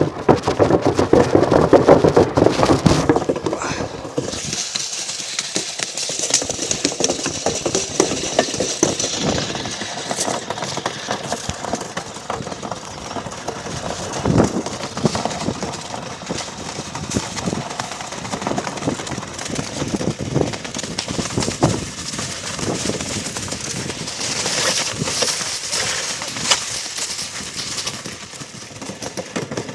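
Sliding along an icy road surface close to the microphone: a continuous scraping, hissing rumble broken by many small knocks and bumps, heaviest in the first few seconds. Wind and handling noise buffet the microphone.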